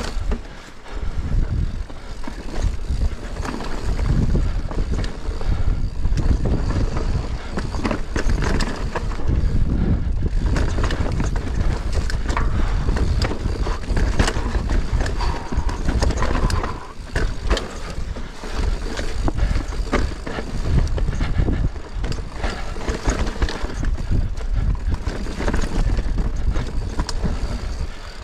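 Mountain bike descending a rocky dirt singletrack: knobby tyres rolling and crunching over stones and earth, with the bike clattering and rattling over bumps, and a low wind rumble on the microphone.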